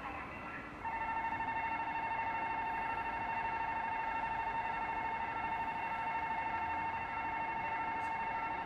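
Railroad level-crossing warning alarm: an electronic bell tone ringing in a rapid, even pulse, starting about a second in and stopping near the end.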